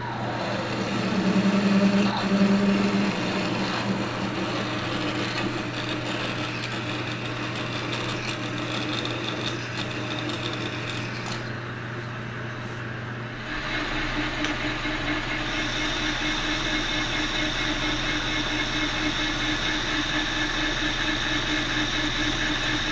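Metal lathe spindle running while a twist drill in the tailstock chuck drills into the spinning workpiece. About 13 seconds in the sound changes abruptly to a steadier lathe run with a high, even whine, as the part turns on a second lathe setup.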